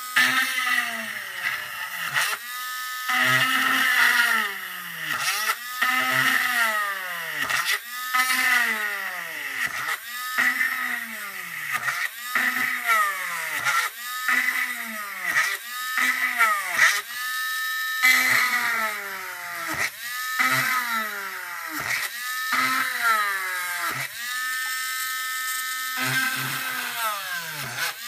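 Small corded handheld electric drill boring a row of holes through a hard plastic car body shell to perforate a cut line. Its whine drops in pitch each time the bit bites into the plastic and climbs back as it frees, about once every one to two seconds, with a few brief stretches running free at a steady pitch.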